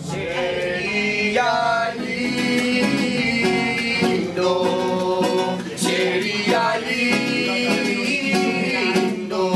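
Music: an acoustic guitar played with a voice singing a melody over it.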